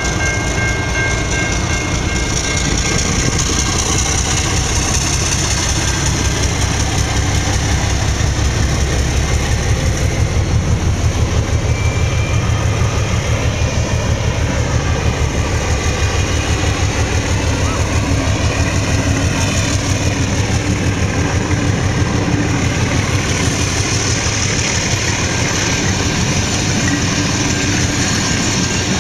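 A diesel-hauled passenger train passing close by: steady locomotive engine rumble and carriage wheels rolling over the rails, with a quick rhythmic beat through the middle. Two thin steady high tones sound for the first couple of seconds, then stop.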